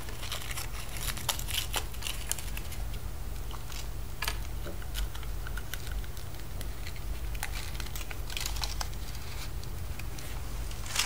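Wrapper of a surprise egg crinkling and tearing as it is unwrapped by hand, in scattered irregular bursts over a low steady hum.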